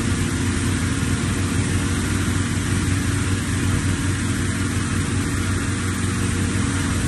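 An engine running steadily, a low hum under an even hiss.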